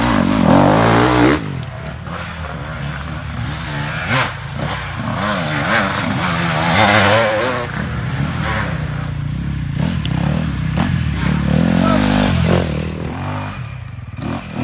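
Dirt bike engines revving and easing off through rough trail riding, their pitch rising and falling throughout. The sound is loudest for about the first second and a half, then drops off suddenly.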